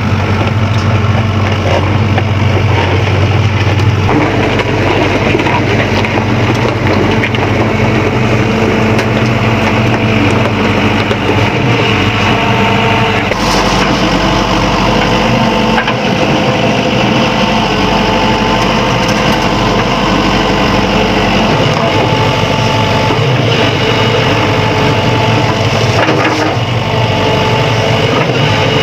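Sany SY75C excavator digging in gravel: its diesel engine runs under load, and its note shifts several times as the work changes, under a steady crunching and grinding of gravel against the bucket.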